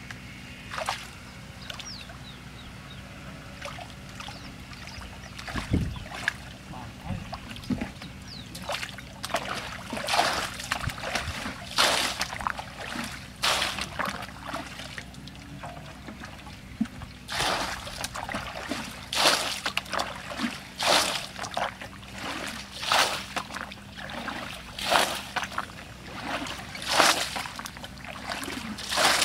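Muddy water being bailed from a shallow pool with a plastic bucket: a run of splashes every second or two as each scoop is flung out, starting about a third of the way in. Before that, only faint sloshing as hands work in the shallow water.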